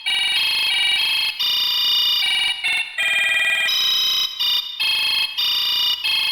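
Notes picked out one at a time on a piano app: electronic, organ-like tones, fairly high in pitch, each held for a fraction of a second to about a second with brief gaps between.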